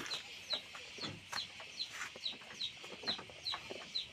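Farmyard chickens clucking, over a short high chirp that repeats about two and a half times a second.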